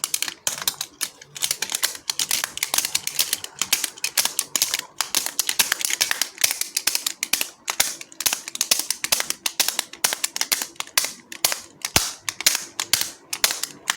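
Hard plastic remote control being clicked and tapped rapidly: a dense, irregular run of sharp clicks, several a second, that sounds noisy.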